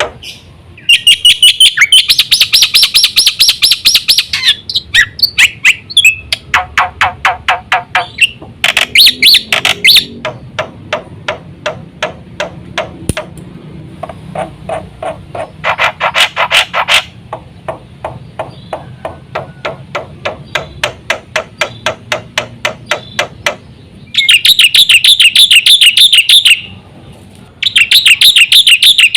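Black-winged myna (jalak putih) singing: loud bursts of one to three seconds made of fast, rapidly repeated harsh chattering notes, with quieter runs of rapid clicking notes between them.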